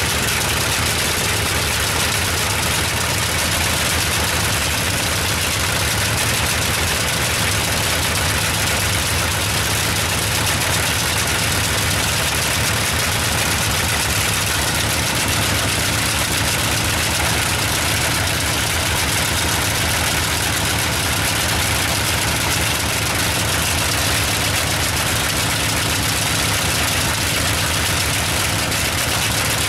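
Bristol Hercules fourteen-cylinder, double-row sleeve-valve radial engine running steadily on a test stand, its propeller turning.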